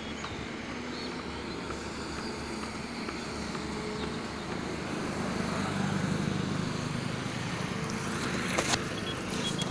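Road traffic on the highway, with a vehicle's engine growing louder and passing from about halfway through over a steady traffic hum.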